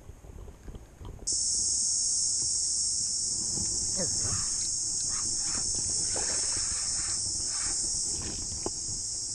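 A loud, steady, high-pitched chorus of insects starts abruptly about a second in and holds, with faint handling sounds beneath it.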